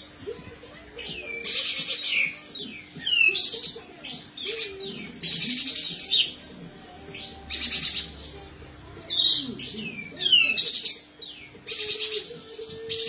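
Caged kapas tembak (olive-winged bulbul) singing a besetan: short, fast, rattling trills repeated every second or two, mixed with quick falling whistles. It is singing prolifically (gacor).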